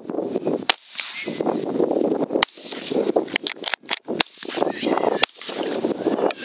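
Rifle shots fired at a group of feral hogs: several sharp cracks spread over a few seconds, with a quick cluster of them about three and a half seconds in. A steady rustle of wind and wheat runs beneath.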